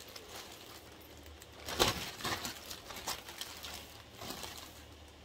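Rustling and crinkling of parcel packaging being handled and searched through, in short scattered bursts, loudest about two seconds in.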